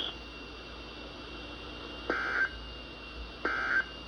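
NOAA Weather Radio SAME end-of-message data bursts marking the end of a warning broadcast: two short digital warbles a little over a second apart, starting about two seconds in, over faint radio hiss with a thin steady high tone.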